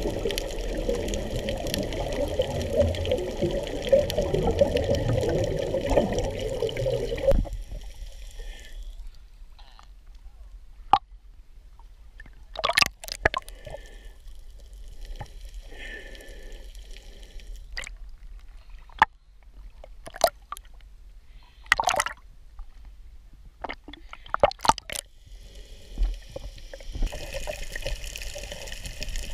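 Water heard underwater on a coral reef: a dense rushing of water for the first several seconds, then a quieter stretch with scattered sharp clicks and pops. The rushing returns near the end.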